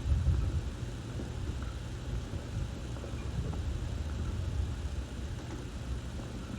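Strong wind buffeting the microphone: a gusting low rumble, loudest in a gust right at the start.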